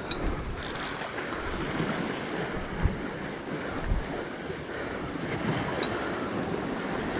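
Sea waves washing against rocks, with wind buffeting the microphone and two dull low thumps about three and four seconds in.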